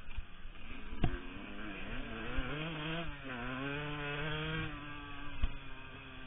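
Yamaha YZ125 two-stroke motocross engine revving up and down. It is held high for a couple of seconds in the middle, then eases off. Two sharp knocks come through, one about a second in and one near the end.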